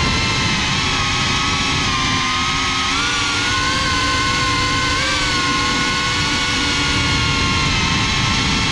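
Motors and propellers of a GEPRC CineLog 35 FPV cinewhoop drone whining, as picked up by the GoPro mounted on it. Several pitches move up and down together with the throttle, over a low wind rumble.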